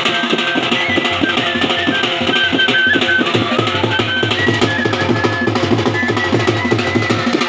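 Bhaderwahi dhol drums beating a steady, dense dance rhythm, with a high melody of short held notes above the drumming.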